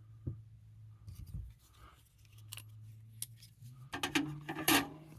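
A folding pocketknife being handled: a few light clicks, then short scraping and rubbing sounds of steel about four seconds in.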